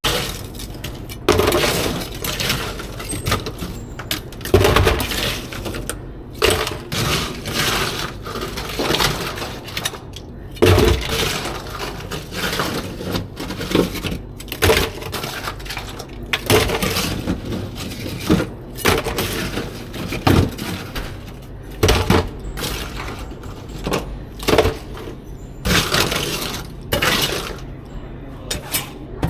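Irregular clattering and knocking of hard objects, with sharp clinks and bangs at uneven intervals.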